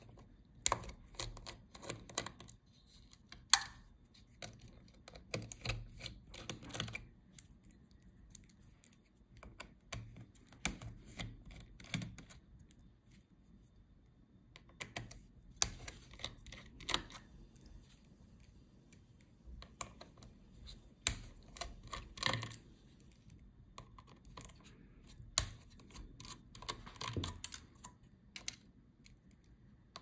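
Small precision screwdriver working the heatsink screws of a laptop: irregular clusters of small sharp clicks, ticks and scrapes of metal on metal as the screws are turned out.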